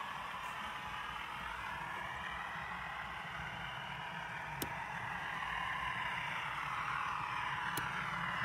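HO-scale model trains running on the layout, a steady running noise. Two sharp clicks, about four and a half and nearly eight seconds in, as turnout points are thrown by hand.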